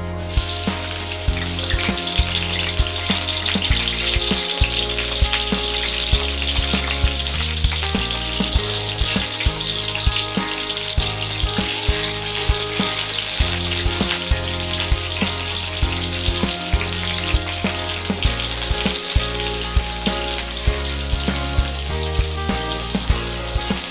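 Eggplant slices frying in hot oil in a wok: a steady sizzle that starts suddenly as they go into the oil, with background music and a steady beat underneath.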